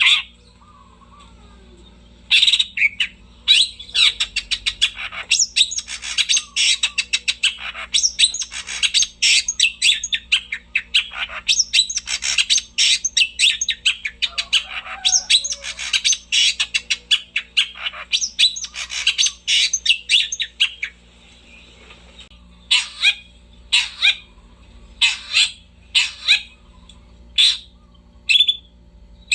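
Long-tailed shrike (cendet) in full song: a long run of rapid, dense chattering phrases starting about two seconds in, then a short pause, then single sharp calls repeated about once a second near the end.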